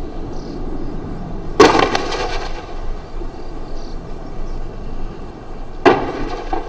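Two heavy blasts of artillery fire about four seconds apart, each dying away in under a second, over a steady low rumble.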